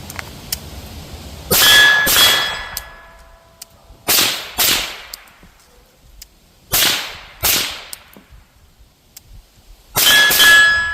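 Suppressed 5.56 rifle fired through an AB Suppressors A-10 "Warthog" can: eight shots in four quick pairs, each pair about half a second apart with a few seconds between pairs. Some shots are followed by a brief ringing tone.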